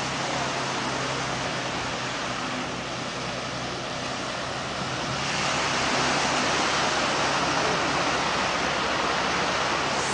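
Caterpillar wheel loader's diesel engine running steadily under a wash of surf and wind noise, which grows louder about five seconds in.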